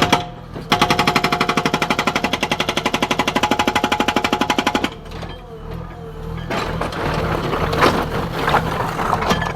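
Hydraulic breaker on a JCB 3DX backhoe hammering in a rapid, even run of blows for about four seconds, then stopping. After that the backhoe's diesel engine runs on with scattered knocks.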